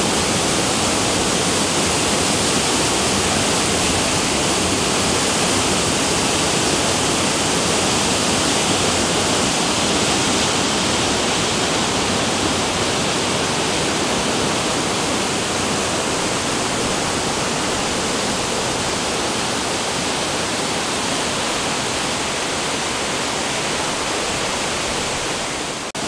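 Waterfall and rocky river rapids below it, water rushing loudly and steadily.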